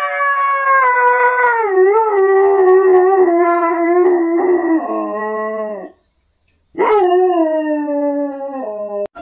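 Husky howling: a long drawn-out howl that wavers and slides down in pitch near its end, then after a short gap a second, shorter howl that also falls in pitch.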